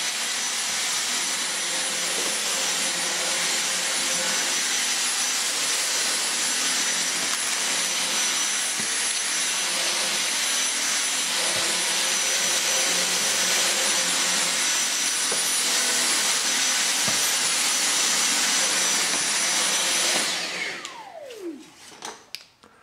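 Dyson V6 Absolute cordless stick vacuum running with its direct drive brush head on a carpet mat: a steady rushing noise with a high whine. About 20 seconds in it stops and the motor winds down with a falling pitch.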